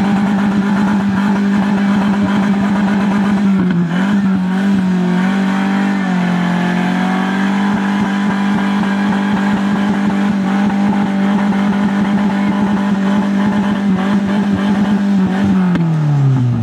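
Off-road trial buggy's engine held at high, steady revs under load as the buggy tries to drive out of a muddy hole, with a couple of brief dips in revs. The revs fall away near the end.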